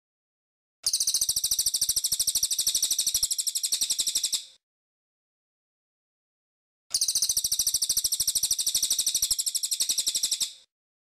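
Cililin singing: two bouts of a rapid, even run of repeated high notes, each lasting nearly four seconds, the second starting about two seconds after the first ends.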